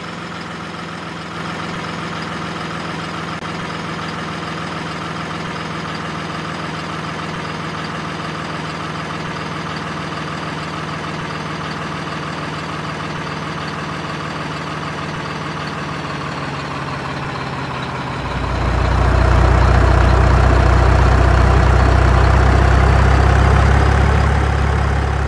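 A heavy, truck-like engine idling steadily at an even pitch. About three quarters of the way through it becomes louder and deeper, and it cuts off suddenly at the end.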